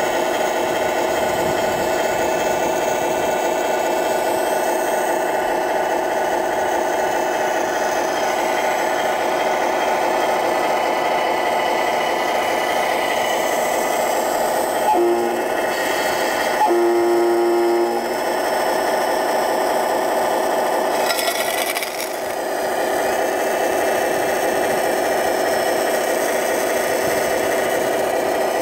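A scale RC Cat 966 wheel loader model running steadily with a mechanical hum. About halfway through, a single higher tone sounds briefly and then again for about a second, like a horn or warning beep. A short rasping scrape follows a few seconds later.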